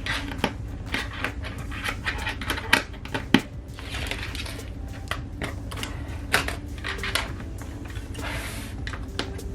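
Small plastic LEGO pieces clicking and tapping as they are handled and pressed together, with scattered sharp clicks and two short rustles of pieces being shuffled about four and eight and a half seconds in.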